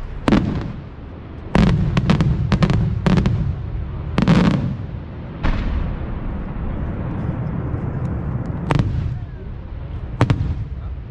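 Fireworks exploding: about ten sharp, loud bangs, each trailing off in a fading echo. Most come in quick succession in the first few seconds, and after a lull a few more go off near the end.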